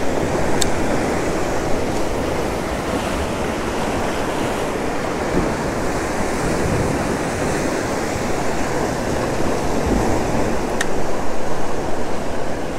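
Steady wind buffeting the microphone over the wash of sea water, out on a small boat, with two brief faint ticks.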